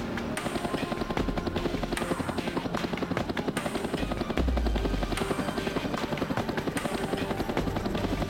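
Two-bladed helicopter in flight, its rotor beating in a fast, even chop.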